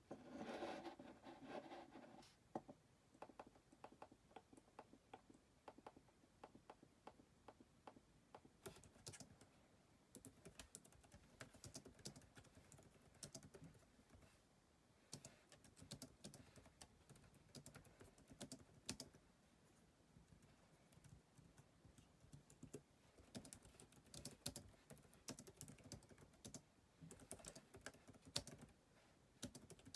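Soft typing on a Logitech multi-device Bluetooth keyboard with round keys, key clicks in quick runs and short pauses. About the first two seconds hold a louder scraping rub of the mouse being dragged across the desk.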